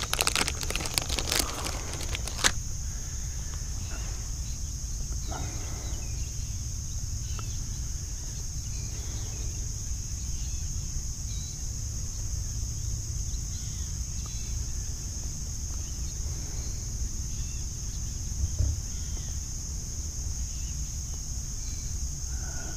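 Plastic bait packaging crinkling for the first two seconds or so, then a steady high-pitched drone of summer insects over a low outdoor rumble.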